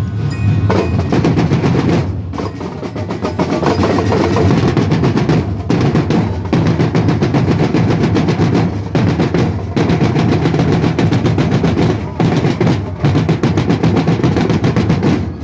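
A marching drumline playing a fast, dense cadence on snare-type drums, with rolls. The playing is broken by several short stops and dips.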